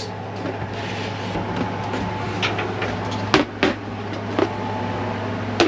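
Steady hum of the camper's air conditioner, with several sharp clicks and knocks as things are handled in a kitchen cabinet.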